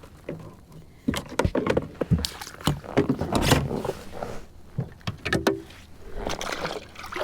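Irregular knocks, taps and scuffing in a fishing kayak as a freshly caught bass is handled and unhooked.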